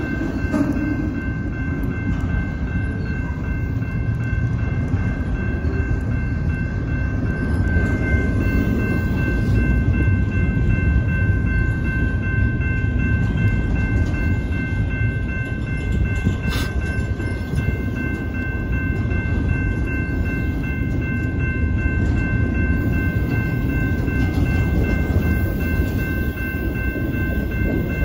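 Loaded double-stack intermodal well cars of a freight train rolling past at close range: a steady low rumble of steel wheels on rail, with steady high ringing tones over it.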